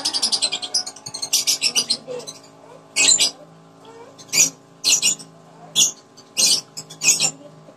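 Crisp crunching of raw fruit being chewed close to the microphone: a quick run of crunches at the start, then single crunches about every half second to second.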